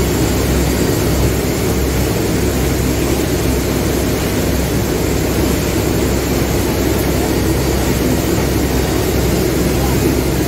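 A boat's engine running steadily with a low drone, heard from on board the moving boat.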